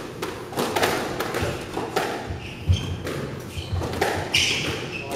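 Squash ball being struck by racquets and hitting the front wall in quick succession during a front-court rally, a sharp knock about every half second to a second. Shoes squeak a few times on the wooden court floor in the second half.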